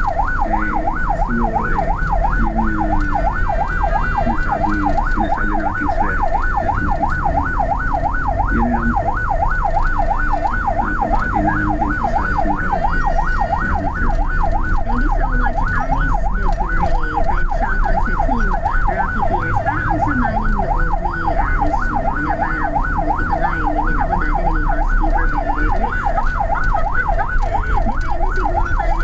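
Ambulance siren on a fast yelp, its pitch sweeping rapidly up and down several times a second, heard from inside the ambulance's cab over the low rumble of the engine and road.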